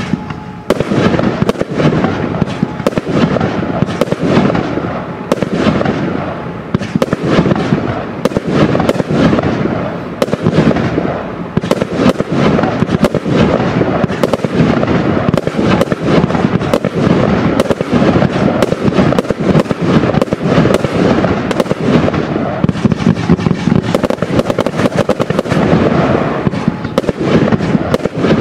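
Absolute Fireworks 'Kraken' firework cake firing a long, rapid barrage of shots and bursting stars, starting suddenly at the beginning and keeping up without a pause.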